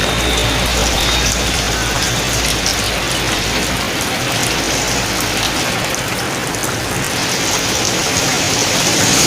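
Steady rain hissing down. A passing vehicle's low engine rumble fades away over the first few seconds, and another vehicle starts to come closer near the end.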